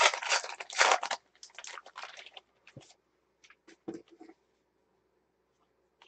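Baseball card pack wrapper crinkling and tearing as the pack is ripped open, loudest in the first second, then fainter rustles and a few light clicks as the cards are slid out and handled.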